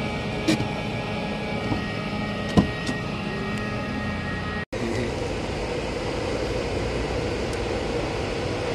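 Steady mechanical drone of the docked ro-ro ferry's machinery running at berth, with a few sharp clicks in the first three seconds. The sound cuts out for a split second just under five seconds in.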